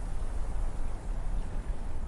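Ocean surf in a lull between breaking waves: a steady low rumble with only a faint hiss above it.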